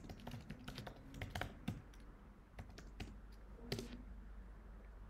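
Computer keyboard typing: faint, irregular key clicks, quick in the first couple of seconds, then a few spaced keystrokes.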